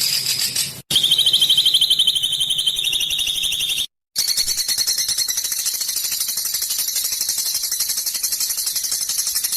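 A songbird's harsh, rapid rattling call used as a training recording, about ten buzzy pulses a second, high-pitched. It stops dead twice, about a second in and about four seconds in, as spliced takes follow one another.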